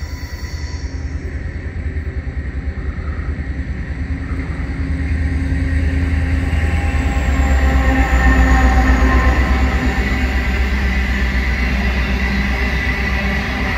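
G class diesel-electric locomotive G542 with a freight train, approaching and passing. Its diesel throbs louder to a peak about eight seconds in, and a high whine drops in pitch as it goes by. Loaded hopper wagons then roll past on the rails.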